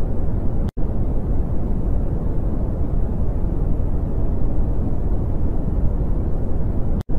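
A sonified space recording, presented as the sound of Saturn's moon Iapetus: a steady, dense low rumbling noise that cuts out for an instant twice, about six seconds apart.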